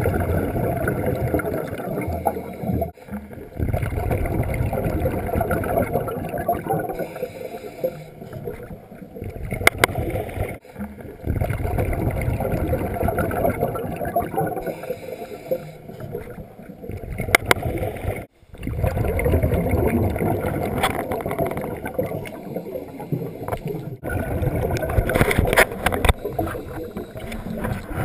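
Muffled rushing and gurgling of water, dropping out briefly three times.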